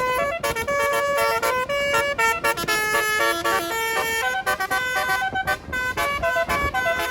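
Tour bus's telolet basuri musical air horn playing a fast melody, one short trumpet-like note after another with a few held longer, without a break.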